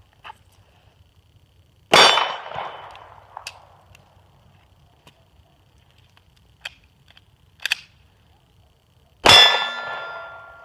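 Two 9mm pistol shots from an H&K P30L, about seven seconds apart, each ringing off a steel target. The second leaves a long metallic ring. Between the shots come a few quiet clicks of the pistol being reloaded.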